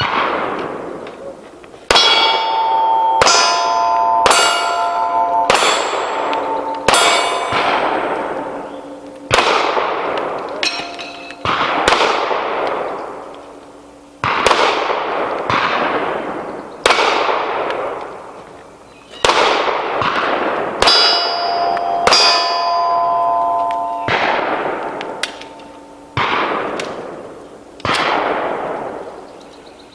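Pistol shots fired at a steady pace, about one every one to two seconds, each followed by the ringing clang of a struck steel target plate.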